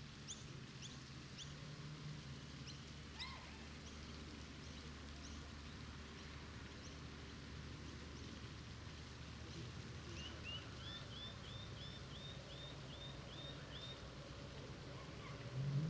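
Outdoor park ambience: small birds chirping over a faint, steady low rumble. Short scattered chirps at the start, then from about ten seconds a run of about a dozen quick repeated chirps, two or three a second, for about four seconds.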